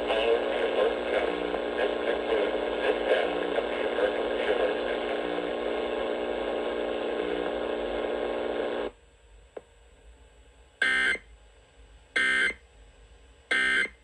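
Emergency Alert System test on FM radio through a small radio speaker: the broadcast test audio cuts off about nine seconds in, followed by three short, evenly spaced screeching data bursts, the EAS end-of-message code that closes the alert.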